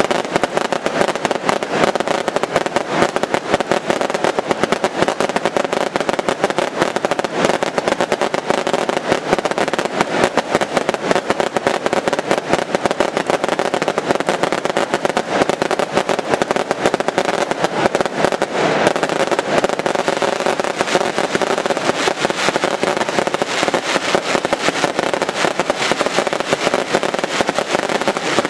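Daylight fireworks bursting overhead: a dense, unbroken rattle of sharp cracks and bangs that keeps going without a pause.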